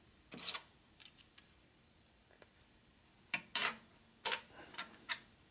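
Small steel valve-spring parts clicking and clinking as they are handled on a steel workbench: a run of short, scattered clicks with gaps between them.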